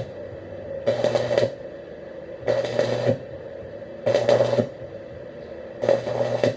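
Electric arc welding in short bursts: four brief arcs, each a crackling hiss over a steady buzz, struck about every second and a half.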